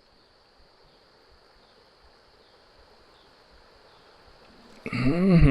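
Faint, quiet riverside background with a steady high-pitched hum, then near the end a man's loud, drawn-out wordless exclamation.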